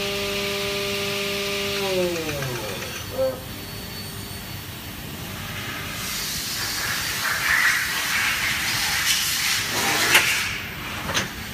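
Twin spindles of a Stama MC 331 Twin CNC machining centre running at their top speed of 12,000 rpm with a steady high whine, then spinning down and fading about two seconds in. A hissing machine noise then builds, with a few sharp knocks near the end.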